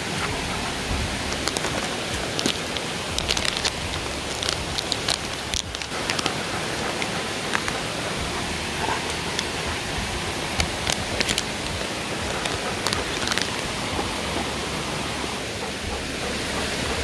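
Steady rushing of a rocky stream flowing beside the path, with scattered short clicks and crackles, most of them in the first two-thirds.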